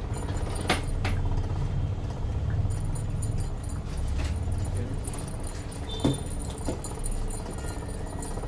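Light metallic jingling and clinking, with a few sharp knocks, over a low steady hum.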